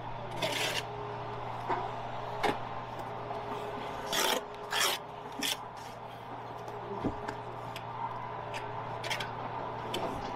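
Brick trowel scraping against brickwork and mortar in a series of short, irregular scrapes, the loudest a few seconds in, over a steady low hum.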